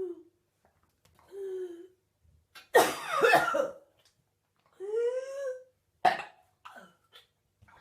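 A woman in a bad coughing fit, coughing and gagging in separate bouts. There are harsh coughs and strained, throaty gagging heaves, and the loudest, longest bout comes about three seconds in.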